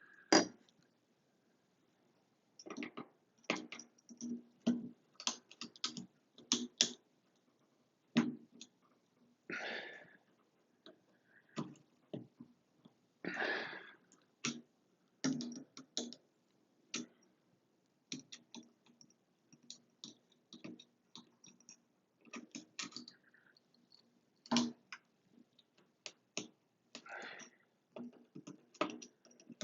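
Irregular small metallic clicks and scrapes as the retaining clip of a Moen shower valve is worked back into place, the clip knocking against the valve body and surrounding tile.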